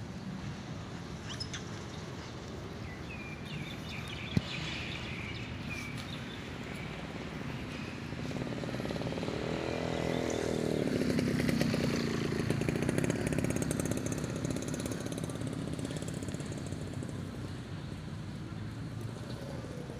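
A motor engine running, swelling to its loudest about halfway through and fading over several seconds, over steady outdoor background noise. A single sharp click about four seconds in.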